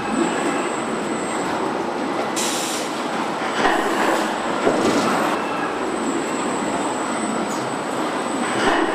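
Steady running noise of a moving vehicle, with a short hiss about two and a half seconds in.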